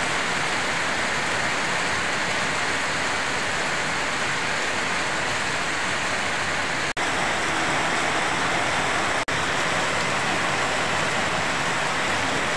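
Heavy rain falling steadily on a paved courtyard, a dense even hiss, broken by two very brief dropouts.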